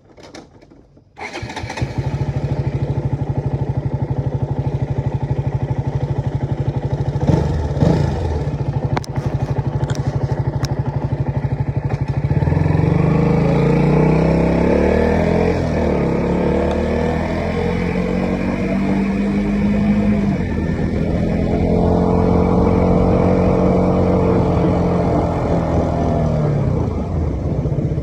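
KTM Duke motorcycle engine starting about a second in and settling to a steady idle, then revved with the pitch rising and falling, once around halfway through and again later.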